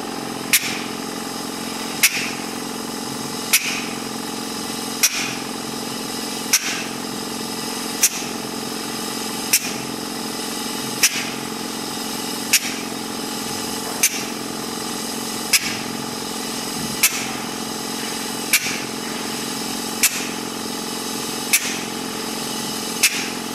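Micro-particle high-pressure essence-injection facial machine running with a steady hum, with a sharp click about every one and a half seconds.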